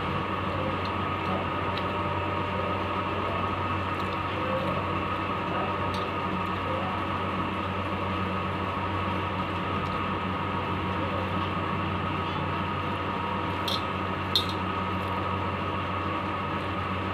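Steady mechanical hum with an even, unchanging drone, and two sharp clicks close together about fourteen seconds in.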